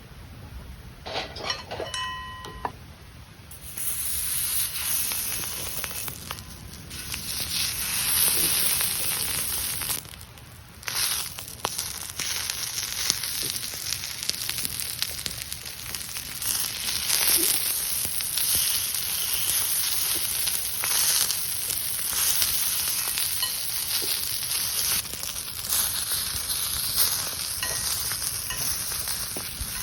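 Food sizzling and crackling as it fries on a steel griddle plate over a campfire. The sizzle starts about four seconds in and briefly dips around ten seconds, after a small metallic clink near the start.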